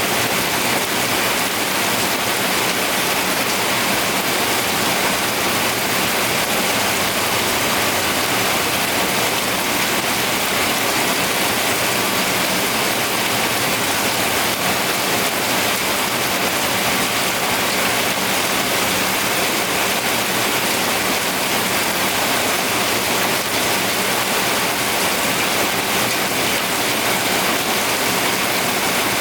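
Steady rain falling, an even hiss that never lets up, with no thunder.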